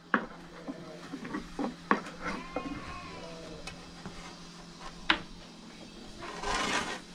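Long wooden rolling pins knocking sharply against wooden boards as thin flatbread dough is rolled out, three loud clacks among lighter taps. Livestock bleating in the background about two seconds in, and a rustle near the end.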